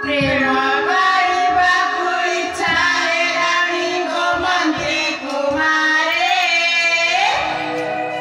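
A song from a folk stage play: a high voice sings a melody over instrumental accompaniment, with drum beats underneath.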